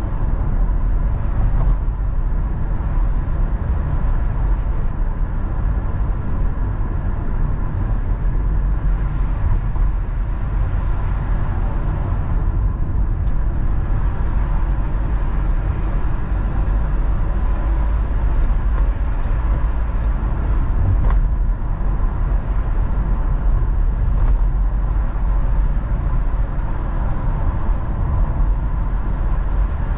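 Steady low rumble of a car being driven, its tyres and engine running continuously with no sudden events. A faint steady high tone runs underneath.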